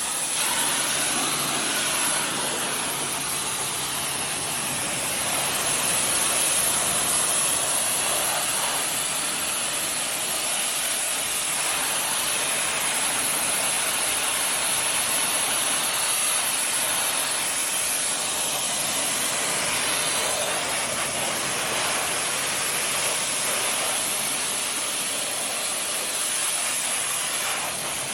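Pressure washer spraying: a steady hiss of high-pressure water.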